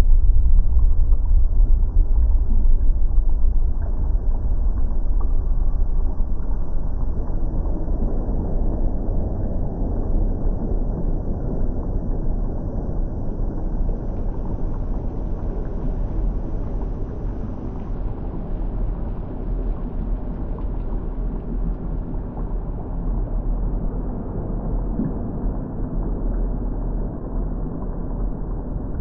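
Water bubbling continuously, a deep steady churn of many bubbles with most of its sound low in pitch, slightly louder in the first few seconds.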